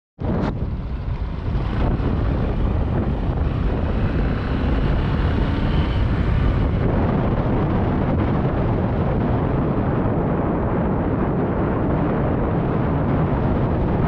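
Wind rumbling on the microphone over the steady road noise of a vehicle driving along a paved road.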